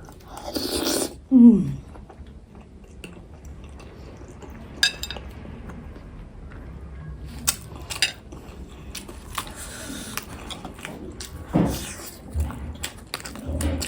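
Close-up eating sounds: a spoon clinking against a bowl and chewing of jhol momo dumplings in soup, with scattered small clicks. A short falling sound about a second and a half in is the loudest moment.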